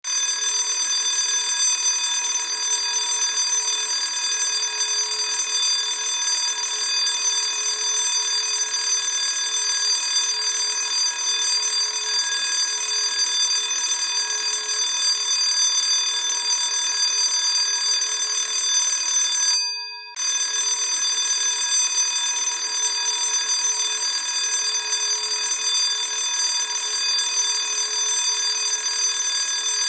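School bell ringing continuously with a steady metallic ring made of many high, fixed pitches. About two-thirds of the way through it stops for roughly half a second, then rings on.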